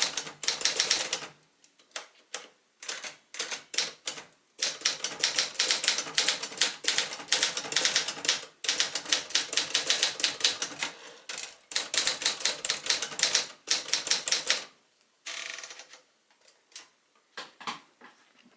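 1973 Adler J2 manual portable typewriter being typed on: fast runs of key strikes, many a second, broken by short pauses. The typing stops about fifteen seconds in, followed by a brief rasping sound and a few scattered clicks.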